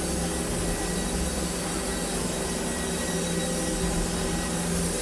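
Wood-Mizer WM4000 band sawmill running steadily: a constant machine hum under an even hiss, with no starts or stops.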